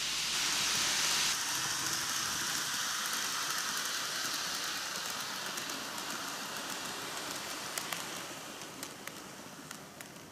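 N gauge model train running on TOMIX cant track: a steady rain-like hiss of wheels and motor that slowly fades, with a few light clicks of wheels crossing rail joints near the end.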